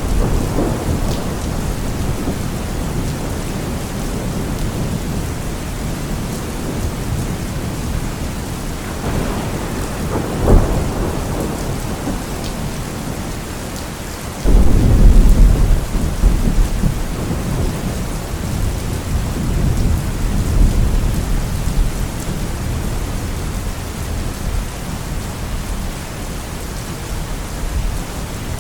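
Steady rain with thunder: a rumble about ten seconds in, then a sudden loud thunderclap about halfway through that rolls on for several seconds, and a further rumble a few seconds later.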